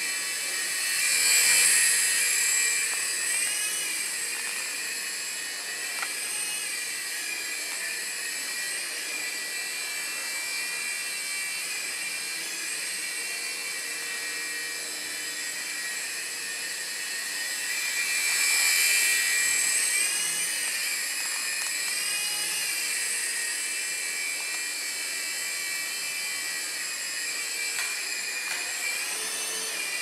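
Small coaxial-rotor toy RC helicopter in flight: a steady, high-pitched whine of its little motors and spinning rotors, wavering in pitch. It swells louder twice, about two seconds in and again around nineteen seconds in.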